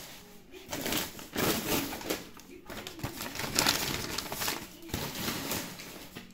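White wrapping paper rustling and crinkling as it is handled and lifted out, in uneven bursts, loudest a second or so in and again near the middle.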